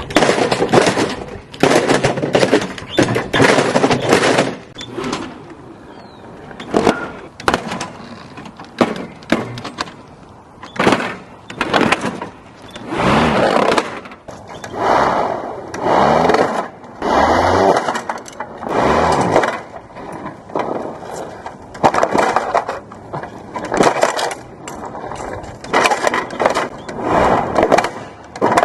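Plastic toy being chewed up by lawnmower blades: a run of loud, irregular crunching and cracking bursts, roughly one every second or two, as pieces are fed in a little at a time.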